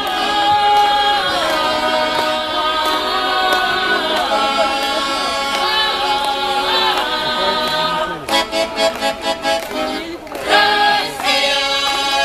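Mixed folk choir of women's and men's voices singing together in full voice with long held chords. About two thirds of the way through, the sound breaks into a quick run of short pulsed notes for a couple of seconds, then swells back into a final held chord.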